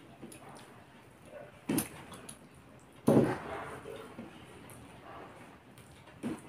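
Hand-eating sounds: fingers mixing rice on a steel plate and a mouthful being taken and chewed. Two short, louder mouth or plate sounds stand out, the stronger one about halfway through.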